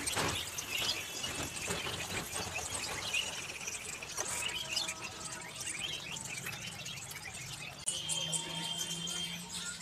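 Potato fingers frying in hot oil in a pan, a steady sizzle, with birds chirping now and then.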